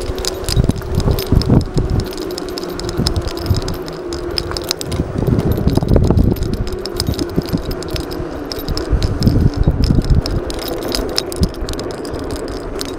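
E100 Eagle 500 W electric scooter being ridden over rough paving: the scooter rattles and knocks over the bumps and the dangling key jangles, over a steady motor hum.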